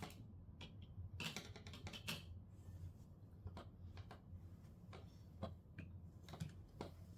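Faint, irregular small clicks and taps of a hand screwdriver working at a screw inside an old TV's casing, the screw still stuck.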